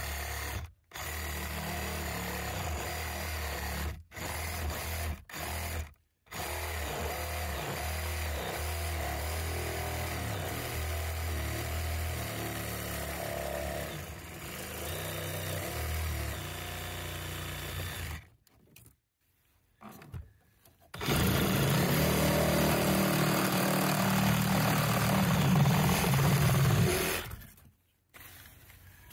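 DeWalt reciprocating saw cutting through a hot tub's ribbed flexible PVC pipe. It runs with short stops in the first six seconds, goes steadily, pauses for a couple of seconds about two-thirds through, then makes a louder final run that stops near the end as the pipe is cut through.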